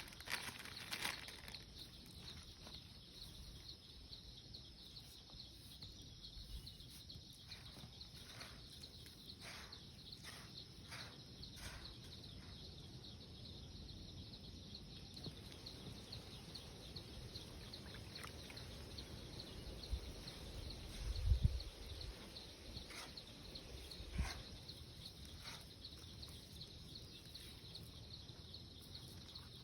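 Quiet outdoor nature ambience: a steady high-pitched pulsing chirr, with scattered light clicks and knocks and two dull low thumps about two-thirds of the way through.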